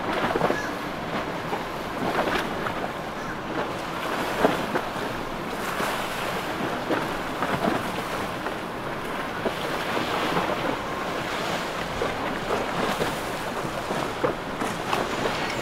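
A motorboat running through choppy water: water splashing and churning in its wake, with wind buffeting the microphone. No steady engine note stands out.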